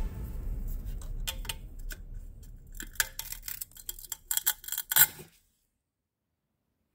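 Scattered light metallic clicks and ticks of steel pliers handling parts on a Honda GX35 four-stroke brushcutter engine, with a quick cluster of sharper ticks near the end; the sound then cuts off abruptly to silence.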